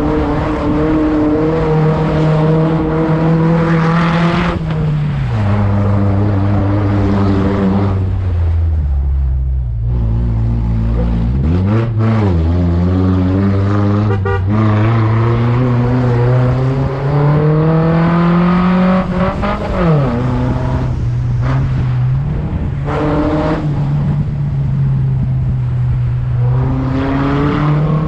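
Off-road 4x4's engine running under load. Its pitch holds, drops in steps around five and eight seconds in, falls low, then jumps in a quick rev about twelve seconds in, climbs slowly, drops again about twenty seconds in and rises near the end, as the vehicle changes gear and speed.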